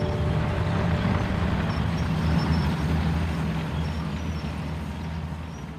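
Sherman tank driving along a road: a steady engine rumble with track and road noise, gradually fading in the second half.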